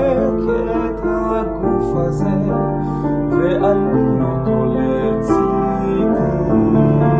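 Piano or keyboard playing a slow, gentle passage of held chords that accompanies a song. A man's singing voice briefly wavers on a held note near the start and again around the middle.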